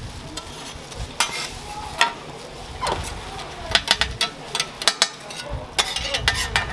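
Food sizzling on a hot griddle for street toast, with repeated sharp clicks and knocks of utensils, in clusters about a third of the way in and again near the end.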